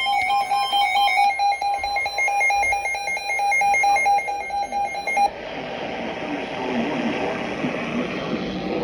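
Emergency Alert System digital data bursts: about five seconds of rapid, shrill, stepping electronic beeping, giving way to a steady radio hiss.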